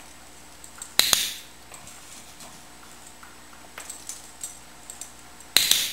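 A handheld training clicker clicked twice, about a second in and again near the end, each a sharp double click marking the dog's correct response. Faint small taps between them as the dog nudges the switch board.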